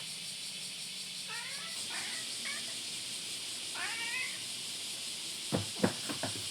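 An animal calling in four short cries over a steady high hiss; about five and a half seconds in, a quick run of sharp knocks, the loudest sounds.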